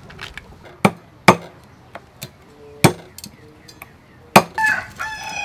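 A heavy knife chopping blue crab pieces on a wooden chopping block: four sharp chops with lighter knocks between them. A high, pitched call begins near the end.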